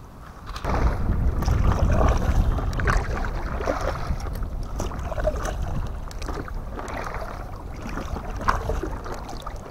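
Kayak being paddled: water splashing and sloshing around the hull over a low steady rumble that starts suddenly under a second in.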